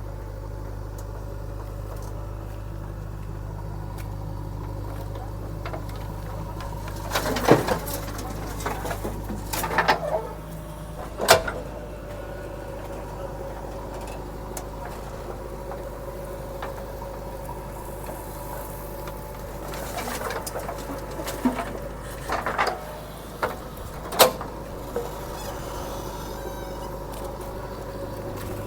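Diesel engine of a JCB 3DX backhoe loader running steadily as it works, with several sharp, loud metallic clanks and knocks from the machine through the middle of the stretch.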